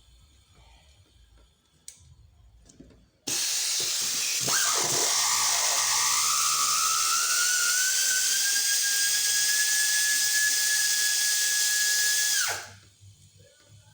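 Power drill running for about nine seconds. It starts suddenly, its pitch dips briefly then rises and settles into a steady whine, and it cuts off suddenly.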